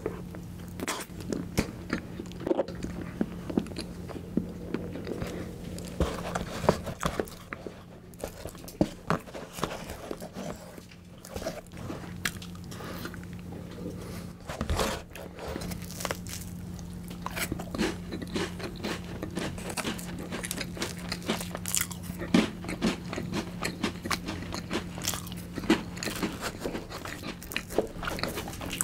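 Close-miked eating sounds: wet chewing and mouth smacks on soft cream cake, with crunchy bites and clicks and scrapes of a spoon against a plastic cake tray.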